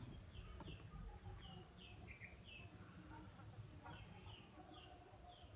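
Faint bird chirping: short high chirps repeating every half second or so over a quiet background.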